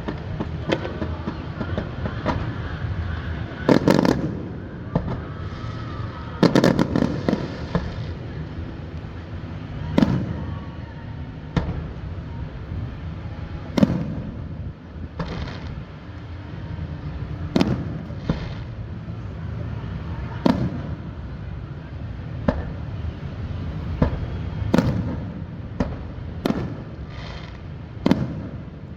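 Aerial fireworks bursting: single sharp booms every two to four seconds, with two denser crackling volleys about four and seven seconds in.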